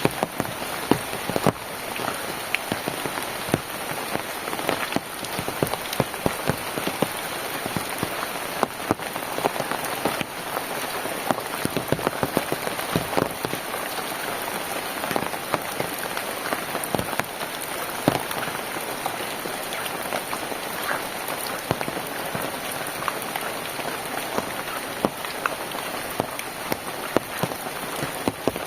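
Steady rain falling, with a constant hiss and many close, sharp drops hitting a hard surface.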